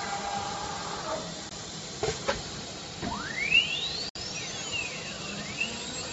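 CNC router's cutting-head motor spinning up: a whine rising steeply in pitch about three seconds in, after two short clunks about two seconds in.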